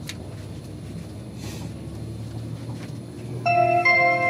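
Steady low rumble, then about three and a half seconds in a train's public-address chime: two clear electronic notes, the second lower, sounding the attention tone before an on-board announcement.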